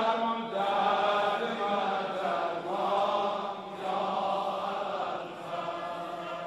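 A man chanting a Shia mourning lament (mersiye) into a microphone in long, wavering held notes, trailing off near the end.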